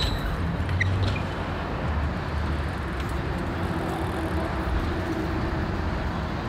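Steady outdoor background noise with an uneven low rumble, and a sharp click right at the start.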